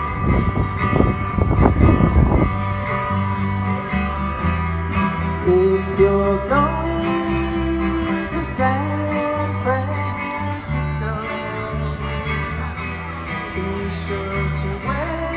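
Live guitar music played through a PA speaker, with a stepping bass line under it. A low rumble on the microphone covers the first two seconds or so.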